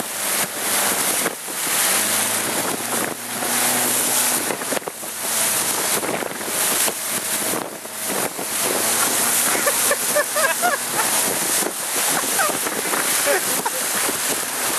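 Strong wind buffeting the microphone in uneven gusts over rough sea water rushing and splashing.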